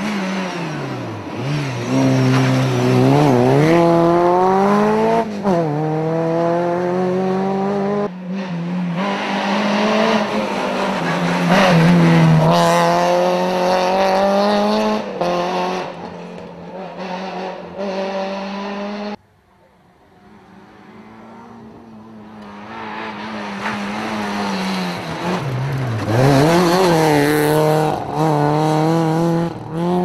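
Rally cars passing one after another at racing speed on a tarmac stage, the first a first-generation Renault Clio, each engine revving hard, its note climbing through the gears and dropping on lift-off and downshifts. About twenty seconds in the sound falls away, then another rally car's engine grows steadily louder as it approaches.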